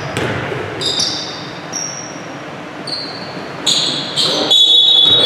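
A basketball bouncing a few times on a hardwood gym floor, then several short high sneaker squeaks on the floor near the end.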